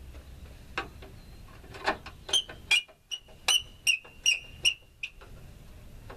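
A screwdriver working the headlamp bezel screws on a 1986 Ford F-150: a couple of dull knocks, then a run of about seven sharp metallic clicks, each with a short ring, about two or three a second, ending about a second before the end.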